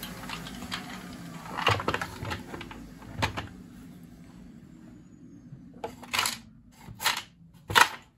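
A small vacuum cleaner running with a steady hum that slowly fades, small bits clicking and rattling as they are sucked out of a plastic toolbox. A few sharp knocks near the end, the last the loudest.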